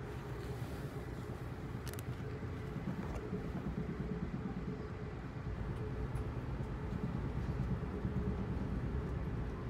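Ride noise inside an Amtrak Amfleet I coach running on the rails: a steady low rumble under a constant hum, with a single sharp click about two seconds in, growing a little louder after the halfway point.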